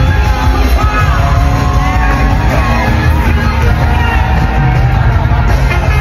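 Loud amplified live worship music with a strong, steady bass, and a crowd singing along in a large hall.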